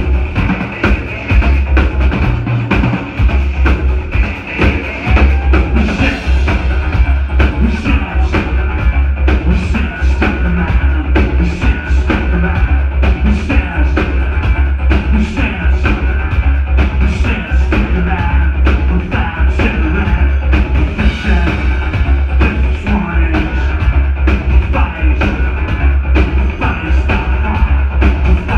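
Industrial band playing live at full volume: a driving drum beat over heavy, booming synth bass and keyboards, heard from within the crowd.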